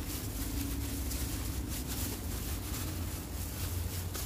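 Clear plastic bag crinkling and rustling in irregular crackles as groundbait is squeezed and kneaded inside it, over a steady low rumble.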